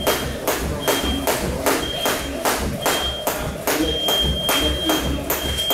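Skipping rope slapping the ring canvas and feet landing with each jump, in a steady rhythm of about three strokes a second.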